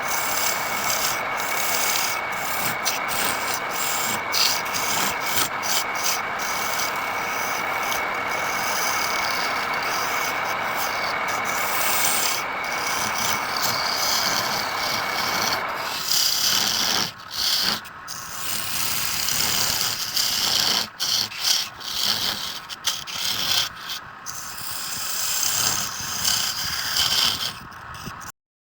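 Wood being worked on a spinning lathe: a continuous rasping rub of tool or abrasive against the turning wood, with a faint steady high whine. About two-thirds of the way in the whine stops and the rubbing turns broken and uneven, with short gaps, until it cuts off just before the end.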